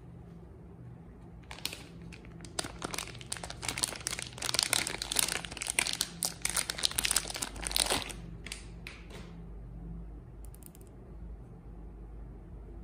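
Protex soap bar being unwrapped by hand, its wrapper crinkling in a dense run of crackles that starts about a second and a half in and dies away after about eight seconds.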